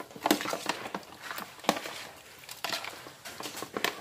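A hand mixing raw chicken pieces in a yogurt marinade in a plastic tray: irregular wet squelches and slaps.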